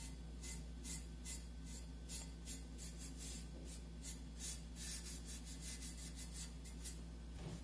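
Quick, even rubbing strokes, about two to three a second, as bitumen of Judea is worked onto a vase's surface. A steady low hum runs underneath.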